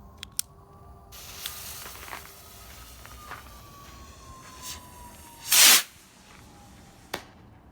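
A small firework burning with a steady hiss and scattered crackles, with one loud pop a little past the middle. The hiss cuts off suddenly near the end.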